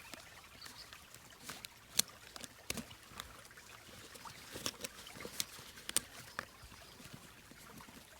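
Scattered small clicks and rustles of a bag's leather straps and fastenings being worked open, over the faint trickle of a stream.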